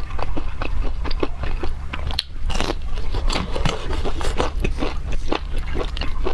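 Close-miked chewing of a crumb-coated fried cutlet: a dense run of crisp crunches in quick succession.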